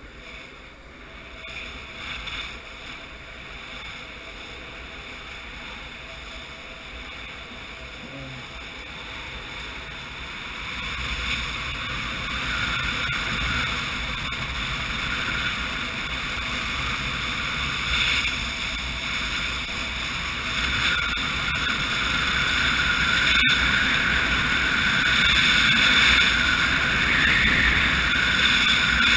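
Wind rushing over the camera's microphone and longboard wheels rolling on asphalt during a downhill run, getting steadily louder as the board picks up speed.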